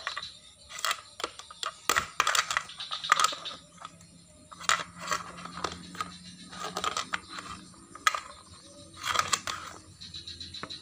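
Small plastic toy kitchen pieces clicking and clattering as a toddler handles them: a loose string of light taps and knocks, bunched in a couple of flurries.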